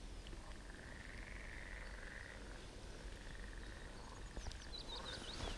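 Frogs calling in two long, pulsed trills of about a second and a half each. Near the end a bird gives a few short chirping whistles.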